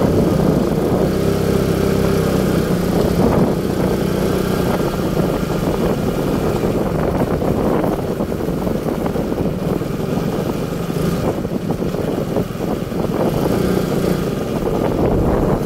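A vehicle engine running steadily, with a constant hum over road or wind rumble.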